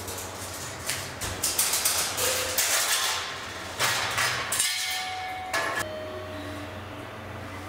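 A run of sharp knocks and clinks, loudest in the first half, over a steady low hum; a couple of short tones sound near the end of the clatter.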